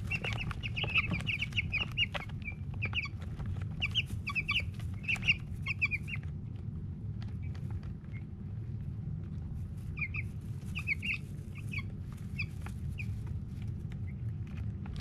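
A brood of Cornish cross chicks peeping, with quick runs of short high peeps during the first six seconds and again around ten to twelve seconds in, over a steady low hum. Scattered sharp clicks from beaks pecking feed in a plastic feeder.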